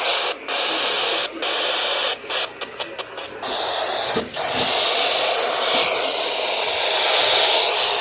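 Static hiss from a weather radio receiver, steady but cut by short dropouts, with a quick run of several near the middle.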